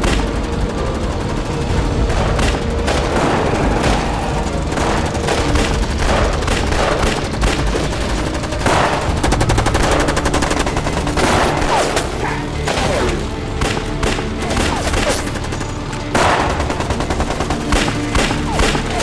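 Rapid, sustained gunfire from rifles, pistols and a machine gun, shots coming thick and fast throughout, with a dramatic music score beneath.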